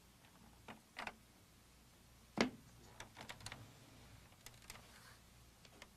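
Faint clicks and taps of plastic parts and a cable connector being handled inside a Macintosh Portable as its display cable is disconnected from the logic board. A few scattered clicks, the loudest about two and a half seconds in, are followed by a run of small ticks.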